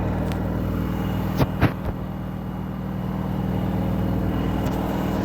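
Washing machine running with a steady low hum, with two short clicks about one and a half seconds in.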